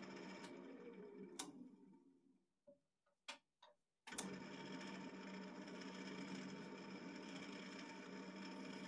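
Wood lathe running with a square red cedar box blank spinning on its chuck: a steady motor hum that fades out about two seconds in. A few sharp clicks follow in the quiet, then the hum starts again abruptly about four seconds in.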